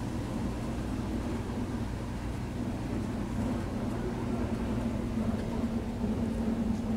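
Motorized detergent and masala mixing machine running, a steady mechanical hum from its motor and drive.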